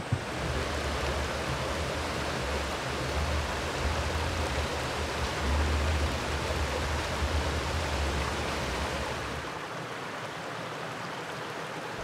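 A mountain stream rushing steadily over rocks. A low rumble under it drops away about three-quarters of the way through.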